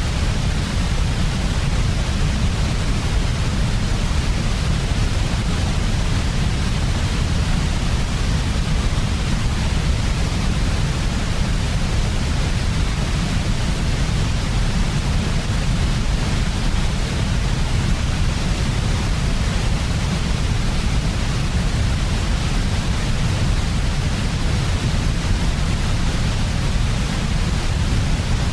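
Steady electronically generated white noise for baby sleep: an even, unchanging hiss with a strong low rumble beneath it.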